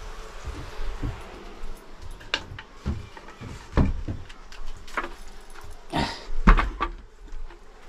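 Irregular wooden knocks and clatter of a wooden board being handled and set down, with the loudest knocks about four seconds in and twice around six seconds in.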